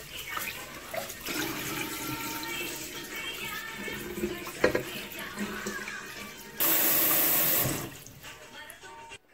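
Water sloshing and splashing as glutinous rice is swirled by hand in a rice cooker's inner pot in a metal sink. The washing water is poured off, with a short, loud rush of running water about two-thirds of the way through.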